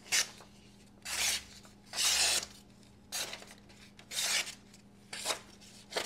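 A Viper Twin slip joint knife slicing through a sheet of paper in about six separate strokes, roughly a second apart, each a short papery rasp.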